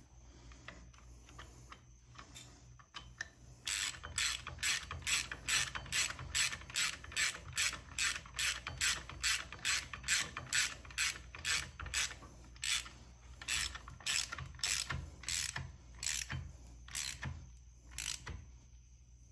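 Hand ratchet wrench worked back and forth in quick, even strokes, each stroke a burst of pawl clicks, about two a second. The strokes start about four seconds in and slow and stop near the end.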